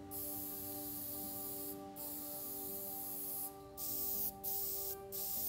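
Aerosol spray can hissing in bursts as a finish is sprayed onto bare wood: two long bursts, then three shorter ones in the last couple of seconds, each cut off briefly by a release of the nozzle.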